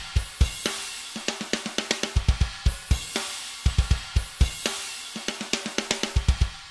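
Programmed metal drum pattern from EzDrummer's Drumkit From Hell: quick runs of bass drum hits from a replacement kick sample, the kit's stock snare, and cymbals and hi-hat. The hits thin out and die away near the end.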